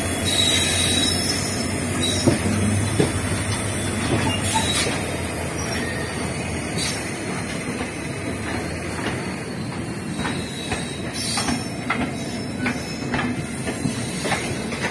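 Train running on rails: a steady rumble of wheels on track, with sharp clicks of wheels over rail joints coming several times a second in the second half.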